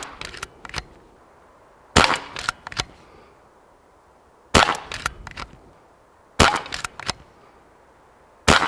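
An Umarex RP5 CO2 pump-action air rifle fires four shots, about two seconds apart. Each sharp crack is followed by a few lighter clicks.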